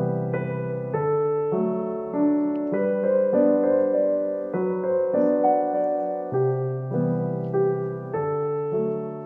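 Background piano music: a slow, gentle melody of struck notes over changing chords.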